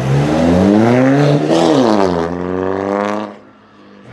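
Volkswagen Golf engine accelerating. The revs climb for about a second and a half, then fall and hold steady before the sound drops away sharply a little over three seconds in.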